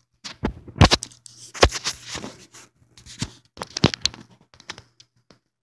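Irregular knocks, thumps and rustling of handling noise as the phone is moved about close to the microphone, with two sharp knocks standing out, a little under a second in and about a second and a half in.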